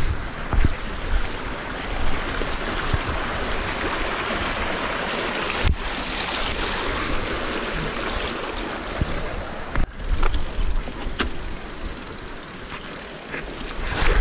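A rocky mountain stream rushing steadily over rocks, with low rumbles of wind on the camera microphone and a few sharp knocks and clicks of the mountain bike being worked over the rocks.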